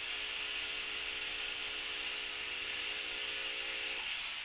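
A steady machine-like hiss with a faint low hum; the hum stops about four seconds in.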